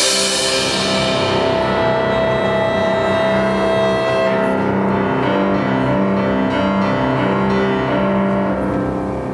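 Classical chamber ensemble playing an overture live, with long held notes over a steady low accompaniment. A bright hissing swell at the start fades away over about a second.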